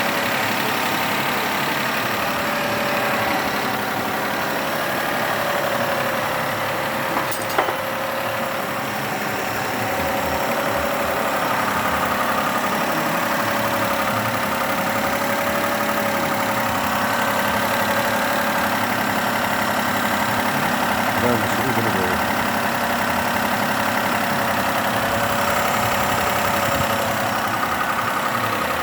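Car engine idling steadily, the kind of running listened to for hydraulic lifter tapping. One sharp click comes about seven and a half seconds in.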